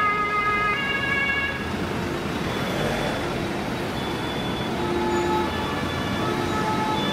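Two-tone sirens of a passing convoy of ambulances and fire-brigade vans, alternating between two notes, over engine and tyre noise. The nearest siren drops away about one and a half seconds in, and fainter siren notes from vehicles further down the line carry on.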